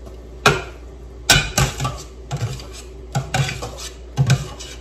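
Cooking utensils and a bowl clacking against a steel pot, about a dozen sharp knocks in irregular pairs and clusters, over a steady low hum.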